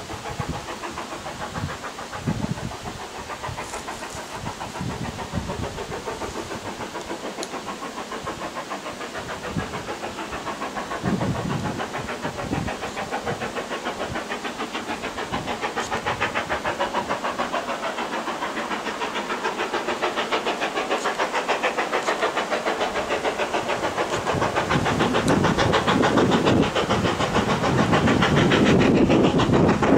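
BR Standard Class 4 2-6-0 two-cylinder steam locomotive working hard up a steep 1 in 49 gradient. Its exhaust beats come in a rapid, even rhythm and grow steadily louder as it approaches.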